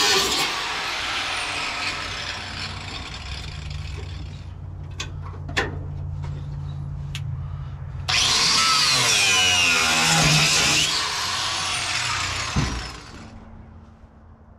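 Abrasive cutoff wheel grinding through the steel cab floor, loud at first, then easing to a lower steady hum broken by a few sharp knocks. A second loud burst of cutting comes past the middle and winds down, and it is much quieter near the end.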